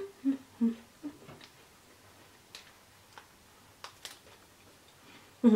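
A person eating a dark-chocolate peanut wafer bar: a few short hummed sounds in the first second, then faint scattered clicks of chewing.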